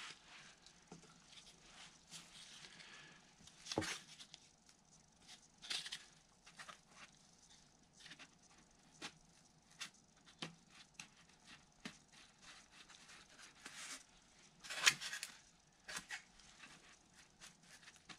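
Faint handling sounds of nitrile-gloved hands pressing and rubbing resin-wet carbon fiber tow into a slot in a foam wing: scattered light clicks and short rustles, the loudest about three-quarters of the way through.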